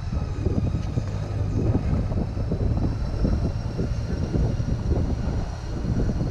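Motorcycle engine running at low revs while the bike rolls along at walking pace: a steady low drone.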